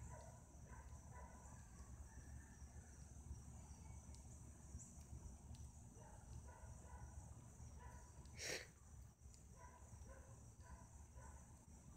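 Quiet outdoor ambience of insects trilling steadily in a high, even band, with a short rush of noise about eight and a half seconds in.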